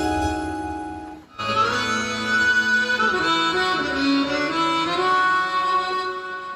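Roland synthesizer keyboard playing a melody on a reed-like patch of held notes. The first phrase fades away about a second in, and a new phrase starts at once.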